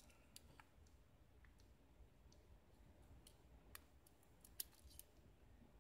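Faint, scattered metallic ticks of steel tweezers working inside the pin chamber of a gutted Abus euro cylinder, drawing out a driver pin. The loudest tick comes a little past the middle.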